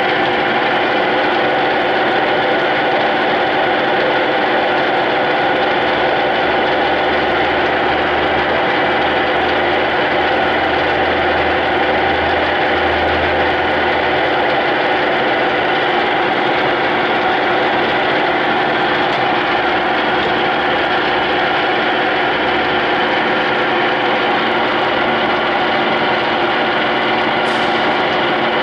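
Clausing Colchester 8031 engine lathe running under power: a steady mechanical hum with several steady whining tones, the sound of its gears turning.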